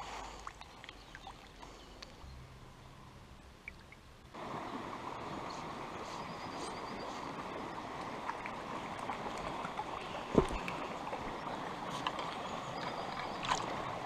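A small stream running over a shallow gravel riffle, a steady rush of water that comes in abruptly about four seconds in after a quieter start. Two sharp knocks stand out above it in the second half.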